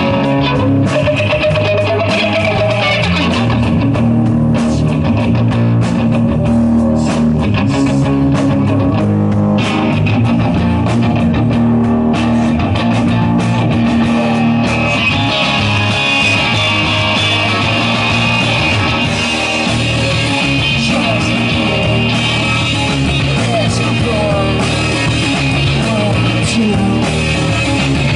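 Live rock band playing, led by electric guitar, with higher sustained guitar notes coming in about halfway.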